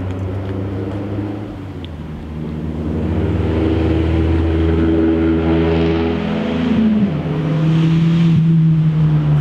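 Car engine pulling under acceleration, its note climbing. About seven seconds in it drops suddenly in pitch at a gear change, then holds steady.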